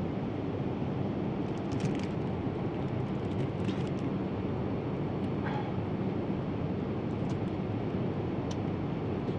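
Steady in-flight cabin noise of a Boeing 787 Dreamliner, an even low rushing hum, with a few faint light ticks and rustles scattered through it.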